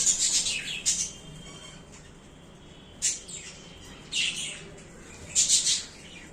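Budgerigars squawking in harsh bursts: a run of squawks at the start, then single bouts about three, four and five and a half seconds in. The squawking is a fight over a clay nesting pot.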